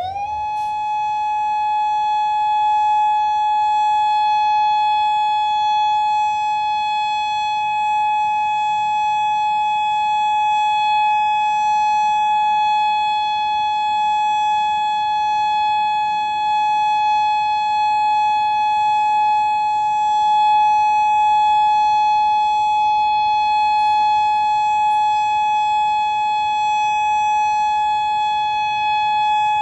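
Federal Signal Modulator 4016 electronic outdoor warning siren finishing its wind-up and holding one steady, loud tone, the steady alert signal of a siren test.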